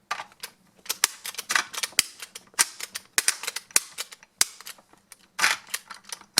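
Plastic toy drill, which runs without batteries, clicking over and over as it drives a screw into a toy car's wheel. The clicks come quickly and irregularly, a few with a short scraping rasp.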